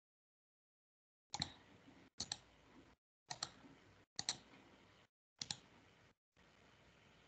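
Computer mouse clicks: about five sharp clicks roughly a second apart while a screen share is set up. Each click is followed by faint room noise that cuts off abruptly, leaving dead silence between.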